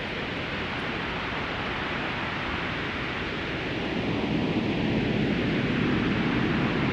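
Synthesized white noise through a convolution reverb, an even rushing hiss like wind or surf, swelling and growing louder about four seconds in.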